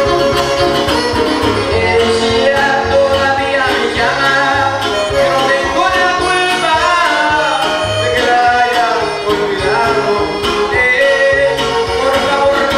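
A string trio playing live in son huasteco style: a violin carrying a wavering, gliding melody over two strummed guitars, the jarana and the huapanguera, which keep a steady rhythmic bass.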